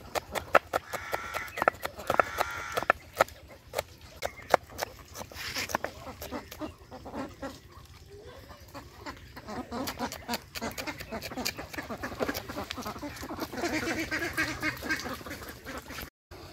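A knife chopping green chillies on a wooden cutting board in quick, sharp taps, most dense in the first few seconds, while a flock of ducks quacks throughout and most busily in the latter half.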